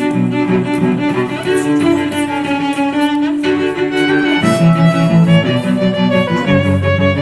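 Background music of bowed strings, violin and cello, playing a melody of held notes.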